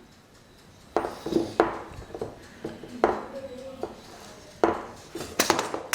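Dishes and metal utensils clinking and knocking, several separate sharp clatters spread across a few seconds.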